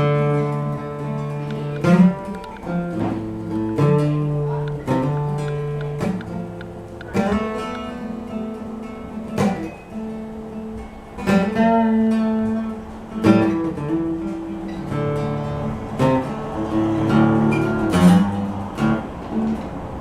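Solo plucked string instrument playing an unhurried folk tune, single notes and small chords picked every second or so and left to ring.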